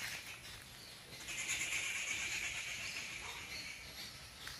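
Steady high-pitched drone of insects, growing louder about a second in.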